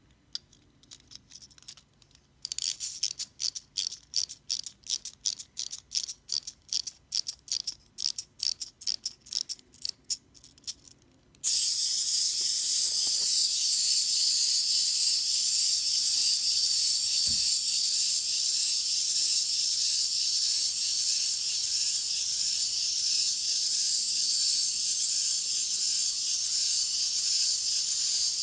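Plastic wind-up crocodile toy being wound: a run of ratcheting clicks from its winding key, about three a second. About eleven seconds in it is let go, and its clockwork motor runs with a steady high-pitched whir as the toy walks.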